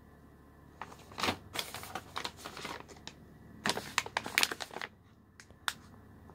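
Plastic snack pouches crinkling and rustling as they are handled, in two spells of a couple of seconds and about a second, with a couple of sharp clicks near the end.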